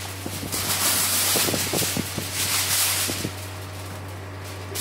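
Sheet of aluminium foil crinkling and rustling as it is spread and pressed down over a large cooking pot, loudest for the first three seconds or so and then quieter. A steady low hum runs underneath.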